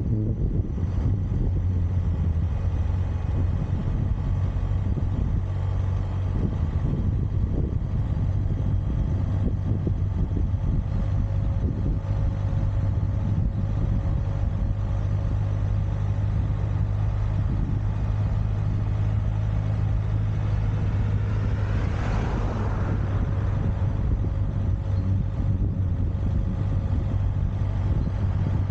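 Steady engine drone with a strong, even low hum. A brief rushing swell rises about three-quarters of the way through.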